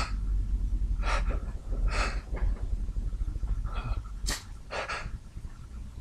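A man's sharp, breathy intakes and sniffs, several in a row about a second apart: the gasping build-up of a sneeze that has not yet come out.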